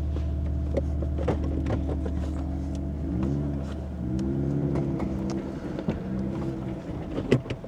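Off-road vehicle's engine running at low speed, its pitch rising and falling a little as it eases off the trail, with scattered clicks and crunches of tyres over rocks and gravel. The engine sound fades near the end as the vehicle comes to a stop.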